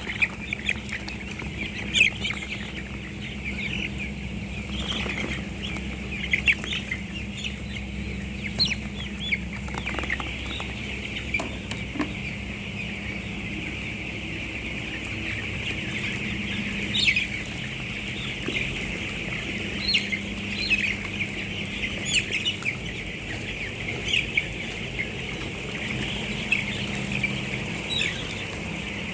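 A brood of chicks peeping continuously, many short high calls overlapping, with louder single calls now and then. A faint steady low hum runs underneath.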